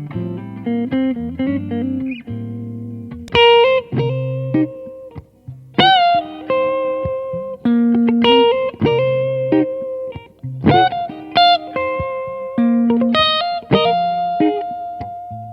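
Gibson ES-335 semi-hollow electric guitar played with a clean tone: a quick run of low single notes, then ringing chords and double-stops struck about every second or two and left to sustain.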